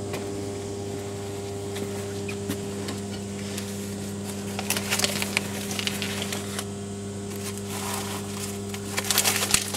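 Crushed, torn book pages rustling and crackling as a gloved hand turns them over, in two short spells, about halfway through and near the end. Under it runs a steady low electrical hum.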